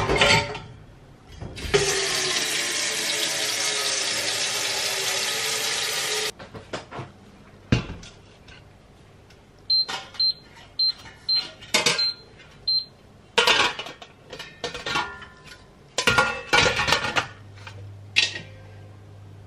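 Tap water running into a stainless steel steamer pot for about four and a half seconds, cutting off sharply. Later a string of about seven short high beeps from the cooktop's touch controls, then metal clanks as the steel steamer tray and pot are handled, with a low hum starting near the end.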